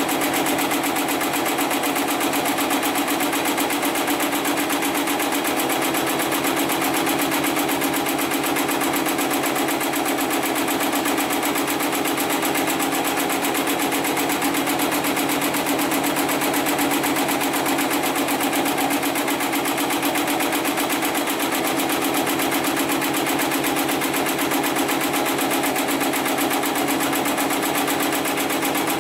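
Hightex 75008 heavy-duty computer-controlled pattern sewing machine running at speed, its needle stitching steadily through several layers of synthetic webbing sling in a fast, even run of strokes.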